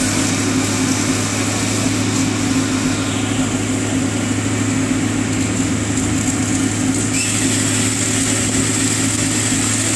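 Fire engine's engine running steadily at a constant speed to drive the pump feeding the hose, with a steady hiss over it.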